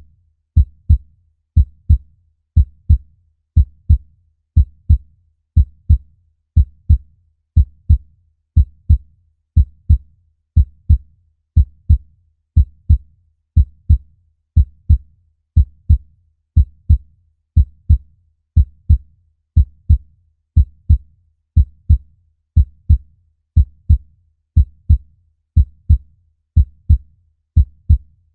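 Human heartbeat: a steady double thump (lub-dub) repeating evenly about once a second.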